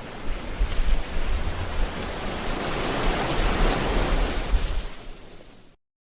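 Ocean waves washing onto the shore: the rush of surf swells to a peak and then fades away, cut off by a brief moment of complete silence near the end.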